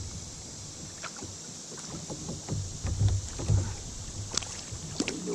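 Water around a kayak on a river: a steady hiss with low swells, broken by a handful of small splashes and knocks.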